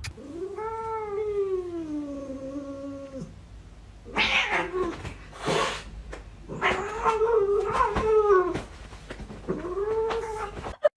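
Domestic cat yowling: a long drawn-out yowl that rises and then slides down in pitch over about three seconds, followed by two short harsh bursts, then another long yowl and a shorter one near the end.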